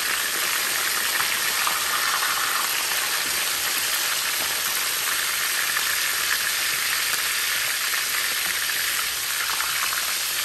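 Salted tilapia pieces frying in hot oil in a pan: a steady, dense crackling sizzle.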